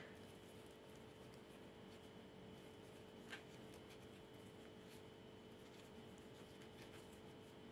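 Near silence: faint room tone with a steady low hum, and a few soft ticks of a crochet hook working yarn, the clearest about three seconds in.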